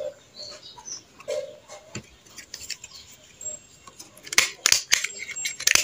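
Soft rustling of banana leaf being handled, then a quick run of sharp clicks from about four seconds in as a small stapler drives staples through the folded leaf.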